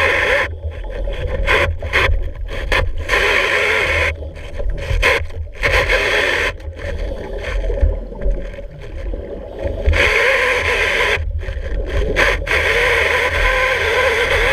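Stanley CS-06 hydraulic chainsaw running underwater while cutting a wooden piling, heard through the water. Its steady noise cuts out and comes back again and again, then runs without a break near the end.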